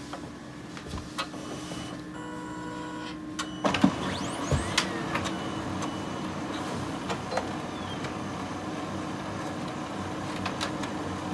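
Brother MFC-L2710DW laser printer warming up after being switched on. It starts with a faint whine, gives a clunk about four seconds in, and then its mechanism runs steadily with occasional clicks.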